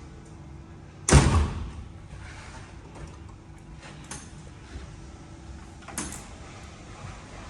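Hinged door shutting under its self-closing mechanism: a loud thud against the frame about a second in, then a faint click and a second, lighter knock a few seconds later.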